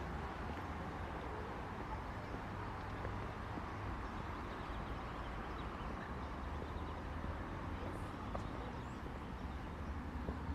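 Steady outdoor city ambience: an even hum of distant traffic, with a few faint scattered ticks.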